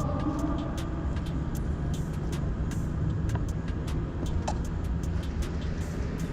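Airsoft guns firing across the field: scattered sharp pops at irregular intervals over a steady low rumble.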